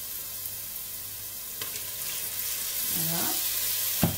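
Tomato and onion sauce sizzling in a pot after a splash of water goes in, getting a little louder toward the end. A glass knocks once on the counter just after four seconds in.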